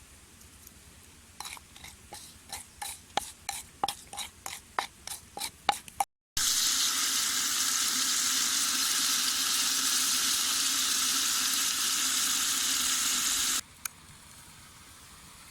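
Cooking sounds: a run of about a dozen sharp knocks that come quicker and quicker, then, after a brief cut, a loud steady hiss that stops abruptly.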